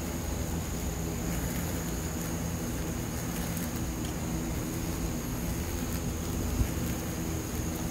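Steady low drone of buzzing insect wings, from giant hornets caught on sticky traps and honeybees around the hives, with a thin steady high tone above it. Near the end, a single sharp click.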